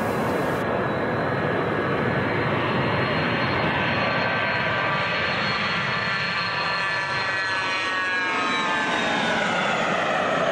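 Airplane engine drone, steady, its pitch falling from about eight seconds in.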